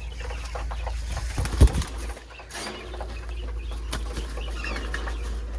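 Hens clucking, with cage rattles and small clicks from handling and one sharp loud knock about a second and a half in.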